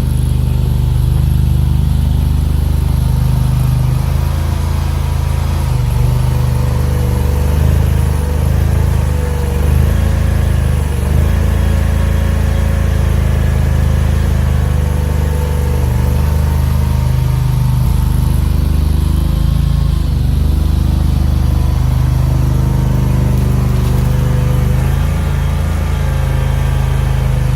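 EG380T mini skid steer's V-twin engine running steadily, its pitch rising and dipping slightly now and then.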